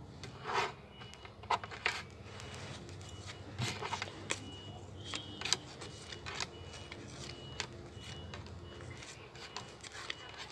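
Pokémon trading cards being handled: scattered short rustles, flicks and light taps as cards are slid through the hands and laid on a table.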